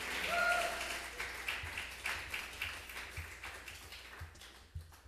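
Audience applause dying away, with a brief whistle about half a second in. Soft low thumps start a little over a second in and repeat unevenly as the clapping thins out.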